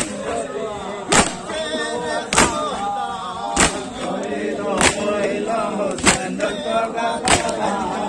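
A crowd of men chanting a Shia mourning lament (nauha) in unison, with the whole group striking their chests together in a steady beat about every second and a quarter: matam.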